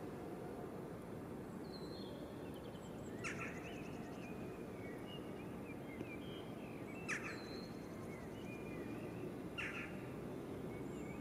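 Faint outdoor ambience: a steady low background hum with birds calling, three short sharp chirps and softer warbling in between.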